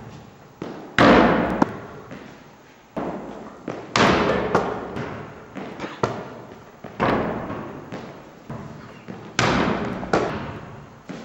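A basketball hitting the backboard and rim and bouncing on a hard floor: a loud thud about every three seconds, four in all, each followed by smaller bounces and a long echo in a large hall.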